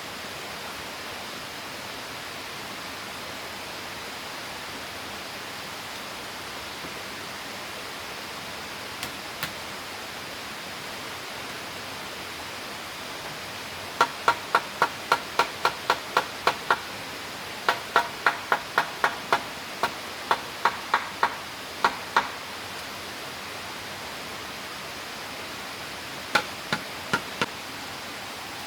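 Steady rushing water, with runs of quick knocking strikes from a hand tool at about four a second: a dozen around halfway through, another dozen after a short pause, and four more near the end.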